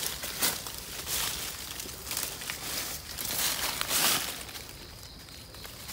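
Irregular rustling and crunching of dry leaf litter and undergrowth, in uneven bursts, quieter near the end.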